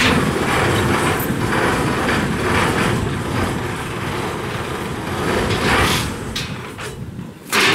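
The engine of a small river ferry runs steadily, a continuous low rumble with some hiss above it, while the boat holds against the bank with its propeller turning. There is a short loud knock near the end.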